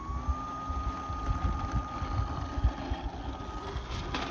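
Small electric motor and propeller of a model airplane running up: its whine rises in pitch as the throttle comes up, then holds steady, over an uneven low rumble. Near the end there is a short burst of hiss. The fliers judge the motor short of pull.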